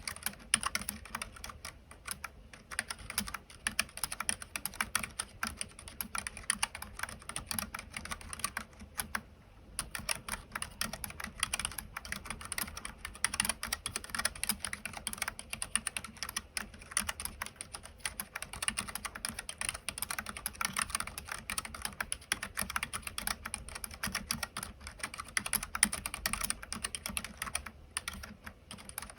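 Typing on a Keychron K3 low-profile keyboard with Keychron low-profile optical White linear switches (30 g): a rapid, continuous patter of key clicks, pausing briefly about nine seconds in.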